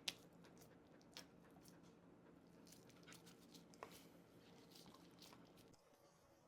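Near silence with a few faint, scattered clicks and soft crunches, like dogs eating cake.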